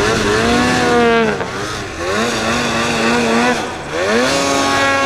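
Mountain snowmobile engine revving hard in throttle bursts as the sled sidehills across a snowy slope. The pitch holds high, drops off about a second and a half in, climbs again at about two seconds, drops near three and a half seconds, then climbs and holds near the end.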